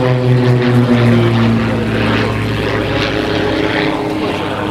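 Propeller airplane's engine droning as it passes, its pitch falling slightly and its sound fading away.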